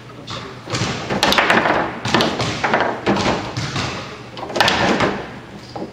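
Foosball table in play: the ball knocking off the player figures and the table walls, with the rods clacking, a string of sharp knocks and thuds at uneven intervals.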